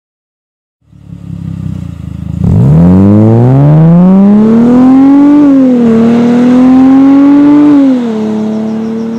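Mercedes-Benz SLK 350 (R171) V6 through a Piecha QUADRO quad-tip exhaust, taking off from a standstill under hard acceleration. After about a second and a half of lower rumble the engine note climbs steeply, dips briefly at a gear change midway, climbs again, then drops and holds a steadier, quieter note near the end as the car draws away.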